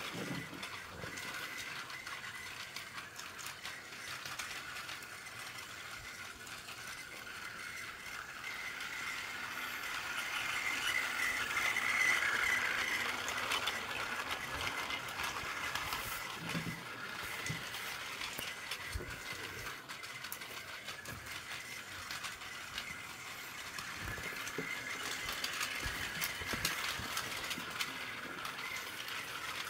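Battery-powered Plarail toy trains running on blue plastic track: the small motors and gearboxes give a steady whir, with light clicking and rattling from the wheels and the track joints. The whir swells about twelve seconds in as the long coupled train passes close by, then eases off.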